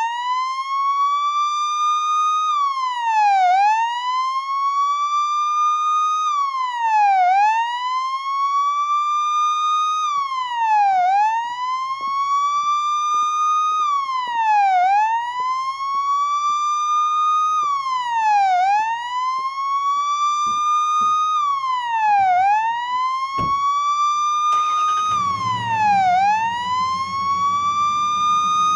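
Police siren wailing: a loud tone that rises slowly and drops quickly, over and over, about every three and a half seconds, starting abruptly. A low rumble joins in near the end.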